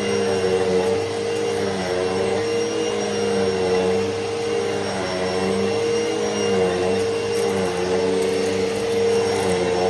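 Hoover Elite Rewind upright vacuum cleaner running steadily, its motor pitch dipping and recovering every second or so as it is pushed back and forth.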